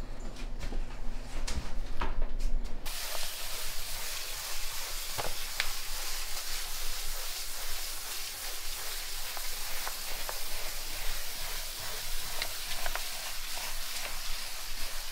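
Hand sanding a sealed concrete countertop with a sanding sponge: a steady scratchy hiss of abrasive rubbing over the cured top coat, with a few light ticks. For the first three seconds, before the sanding starts abruptly, a paint roller spreads wet top coat, with low hum and a few clicks.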